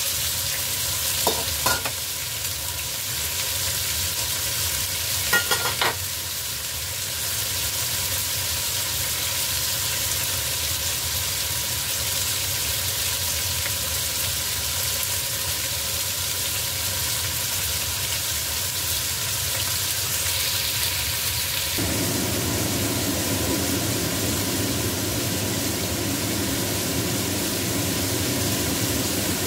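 Diced chicken sizzling as it fries in a stainless steel pan, with a few sharp scrapes and clacks of a spatula against the pan in the first six seconds. About three-quarters of the way through, a deeper, rougher steady noise joins the sizzle.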